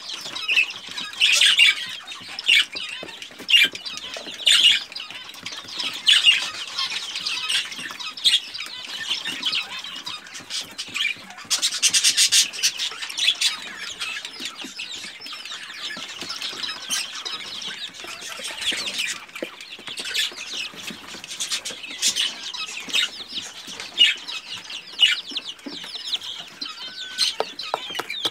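A brood of young Pekin bantam chicks calling busily in short high cheeps, with a dense burst about 12 seconds in. Along with the calls come small scratchy clicks as the chicks scratch and peck through chick crumb in their food tray.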